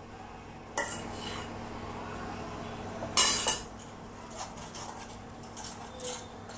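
Steel spoon stirring and scraping a gram flour, Horlicks and ghee mix in a stainless steel pot, with a few sharp metal clinks against the pot. One clink comes about a second in, and the loudest ones come about three seconds in.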